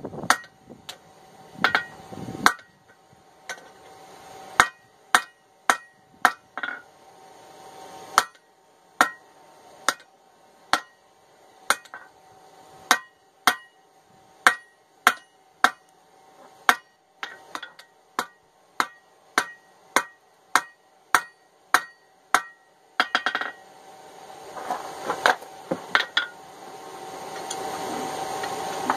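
Hand hammer striking a hot ball peen hammer head held in tongs on an anvil, a steady rhythm of about one and a half blows a second, each blow ringing: the steel is being drawn out into the chipping end. About 23 seconds in the blows thin out and a steady rushing noise rises under the last few strikes.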